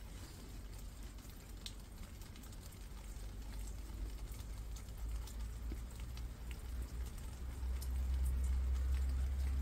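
Rain falling on foliage, with scattered drops ticking, over a low rumble that grows louder about eight seconds in.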